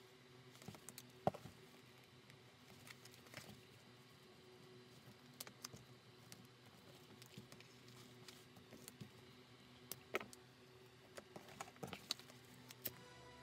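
Faint, scattered taps and rustles of hands handling a leather bag panel with a zipper on a cutting mat, over a low steady hum.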